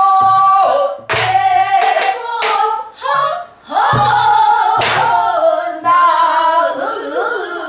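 Women singing Korean southern folk song (Namdo minyo) with heavy vibrato in long held notes, accompanied by irregular strokes on buk barrel drums. The singing breaks off briefly about three and a half seconds in, then resumes.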